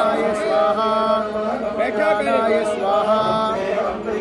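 A voice chanting Sanskrit puja mantras in a steady recitation, over a steady low hum.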